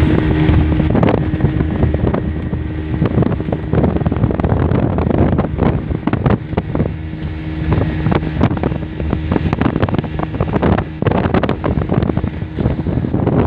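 Pongrass runabout's engine running steadily under way, with gusty wind buffeting the microphone and frequent irregular sharp knocks over the top.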